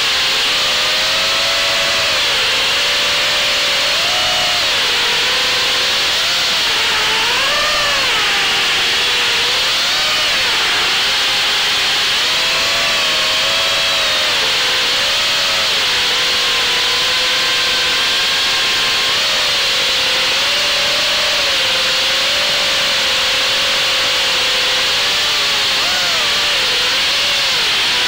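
Brushless motors and propellers of an FPV quadcopter whining steadily, heard up close from the onboard camera, the pitch rising and falling with the throttle over a constant rushing hiss.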